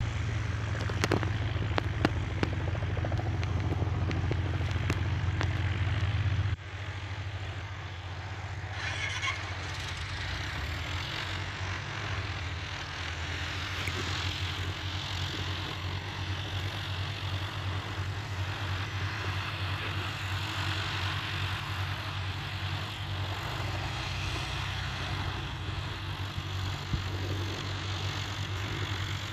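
Small propeller aircraft engine running in the distance, a steady low drone. It is louder for the first six seconds or so, then drops suddenly, with a few sharp knocks in the first two seconds.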